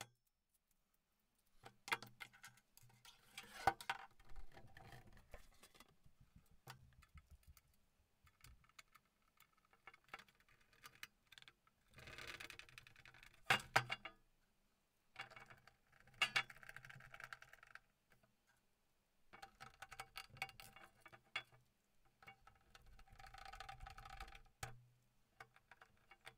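Faint clicks, taps and rattles of small screws, metal parts and a screwdriver being handled on a steel 1U rack-mount shelf as it is put together.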